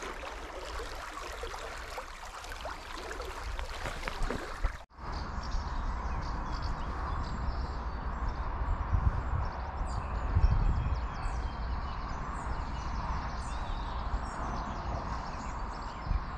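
River water rushing steadily, with wind rumbling on the microphone. About five seconds in the sound breaks off briefly and comes back as a softer, duller rush of water, with faint bird chirps in the second half.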